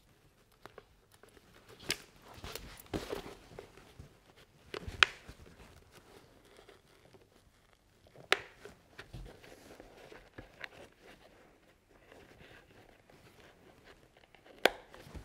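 A fabric-covered padded headliner is pushed and tucked into a Shoei EX-Zero motorcycle helmet shell by hand. It makes soft rustling and rubbing handling noise, broken by a few sharp clicks as it is pressed into place.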